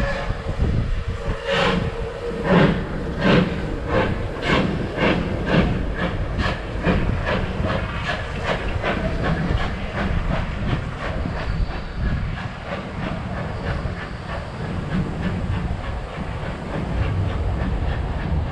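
Steam locomotive pulling away, its exhaust chuffing in beats that start about a second and a half in and quicken from about one a second to two or more a second. The beats grow fainter as it draws off, over a steady hiss of steam.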